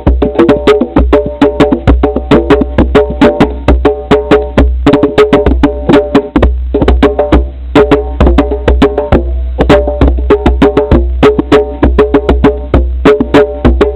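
Music of fast pitched percussion: rapid strokes on a tuned instrument in a repeating rhythmic pattern, with a heavy low thud underneath.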